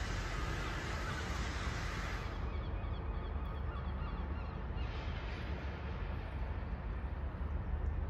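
Steady outdoor city background noise with a low rumble. A brighter hiss fades out about two seconds in and comes back around five seconds in, and faint bird calls sound in between.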